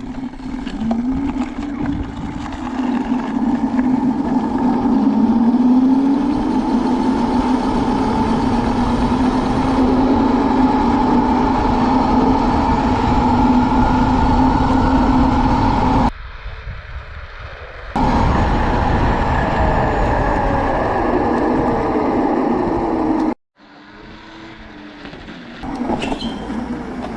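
A 72-volt QS90 electric motor kit on a micro mini-bike whining under way, its pitch climbing over the first few seconds and then holding, over a loud low rushing noise. The sound drops away for about two seconds partway through, and again a few seconds before the end.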